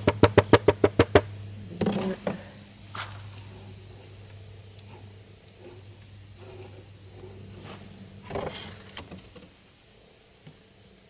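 A quick rattle of short pulses in the first second, then scattered light knocks and handling noise as a wooden drawer and a laminate nightstand are handled, over a steady low hum that fades out near the end.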